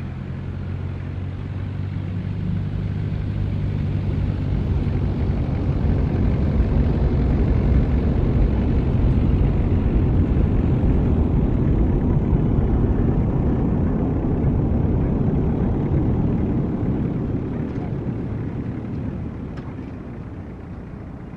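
Airplane coming in to land passing overhead: a rumble that builds for several seconds, peaks around the middle and then fades, with a steady low hum at the start.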